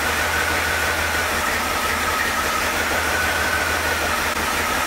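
Chevrolet Performance 350 H.O. small-block V8 running steadily in its first minutes after a first-ever start, with a steady high whine above the engine noise.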